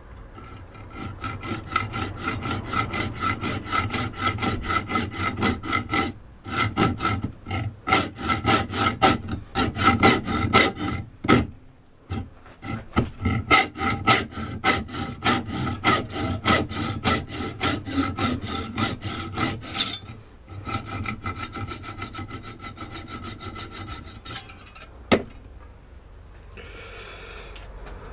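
Hand hacksaw cutting off a small piece of a metal part held in a lathe chuck: rhythmic back-and-forth rasping strokes with a ringing tone from the blade and work. It pauses briefly three times, goes lighter for the last few strokes, then a sharp click, and it stops a couple of seconds before the end.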